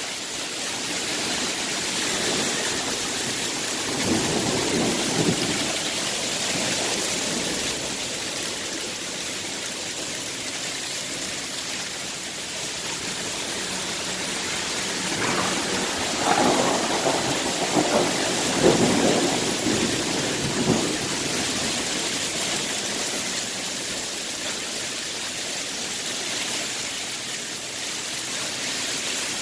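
Heavy hail coming down, a dense steady hiss of stones striking. It swells louder and deeper about four seconds in, and again for several seconds past the middle.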